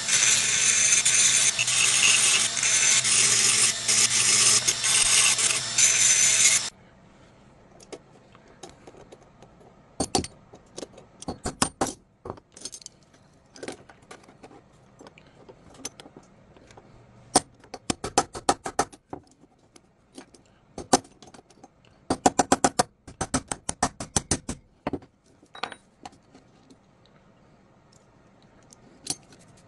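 Dremel rotary tool running against rusty metal, steady and loud, cutting off suddenly about seven seconds in. After it come scattered light metallic clicks and clinks, some in quick clusters, as small metal parts are handled.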